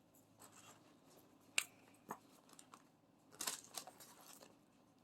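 Faint, scattered clicks and soft rustling of small plastic packets of diamond painting drills being handled, with a short cluster of them a little past the middle.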